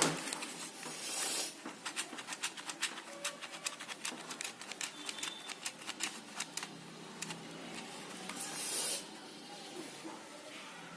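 Handling noise: a sharp click, then a run of light, irregular clicks and taps with two brief rustles, about a second in and near the end.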